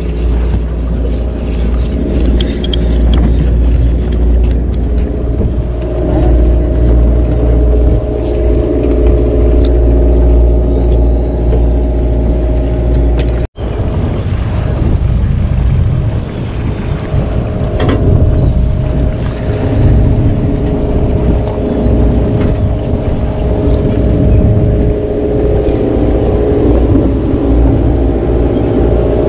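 Sportfishing boat's engine running steadily with a low, even hum. It cuts out for an instant about halfway, after which the engine sound is rougher and mixed with more rushing noise.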